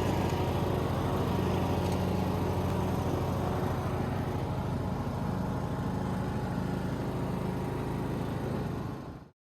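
John Deere S100 riding mower engine running steadily at a constant speed, then cutting off abruptly near the end.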